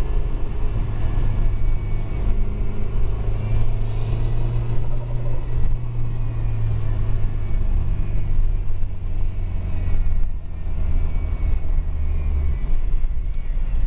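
In-cabin sound of a VAZ 2108 with a swapped-in turbocharged Audi 2.0-litre engine. The engine drones steadily while cruising, over road and tyre noise. The lowest part of the drone drops away near the end.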